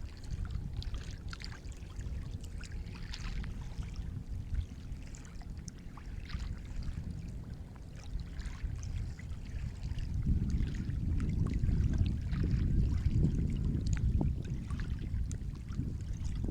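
Sea waves washing in, with splashing and fizzing water throughout. A bigger wave surges in about ten seconds in, louder for several seconds before easing.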